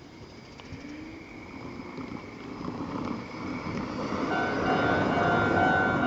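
A car drives over the level crossing, its tyre and engine noise rising as it passes. About four seconds in, the crossing's electronic warning bell starts its repeating 'kan-kan' ringing, signalling an approaching train.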